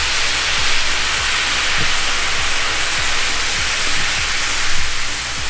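Hot pan of browned flour hissing and sputtering in a steady sizzle as water is added to start a sauce, the steam rushing off the pan.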